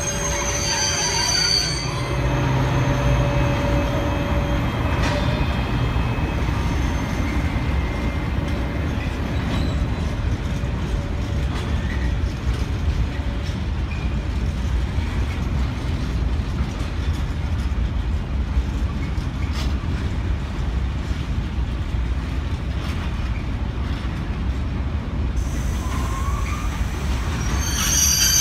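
Freight train of hopper wagons rolling past with a steady rumble of wheels on rail. High-pitched wheel squeal sounds in the first couple of seconds and again near the end.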